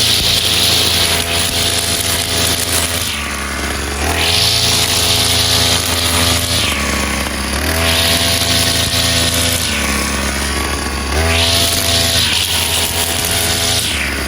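Two-stroke brush cutter engine with a 45 mm bore and Walbro carburettor, revving up and easing back in turns about every three to four seconds as it cuts grass.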